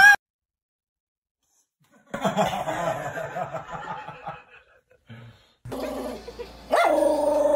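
Two seconds of dead silence, then a short stretch of indistinct household sound. Near the end a dog starts a long, steady cry that swoops up at the start and is then held.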